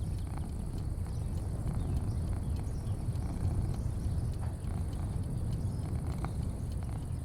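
Outdoor porch ambience: a steady low rumble, a thin steady high-pitched drone and faint scattered ticks and chirps.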